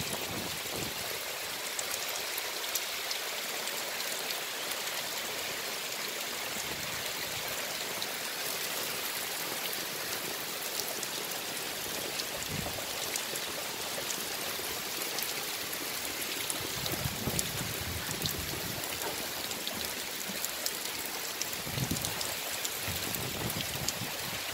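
Steady rain falling, with water dripping off the edge of a hut roof, a constant hiss full of small drop ticks. Brief low rumbles come twice in the second half.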